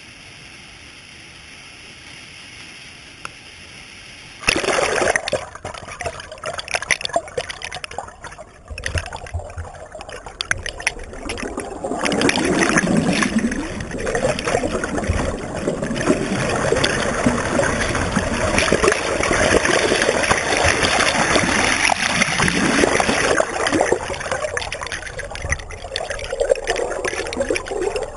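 Small river waterfall: a steady, fainter rush of falling water, then about four and a half seconds in a sudden jump to loud churning and bubbling heard from underwater in the plunge pool, full of crackles from the air bubbles.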